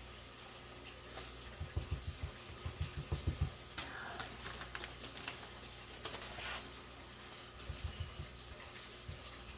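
Hands working brown sugar onto a rack of beef ribs: soft, dull pats several a second, in one run about two seconds in and another near the end.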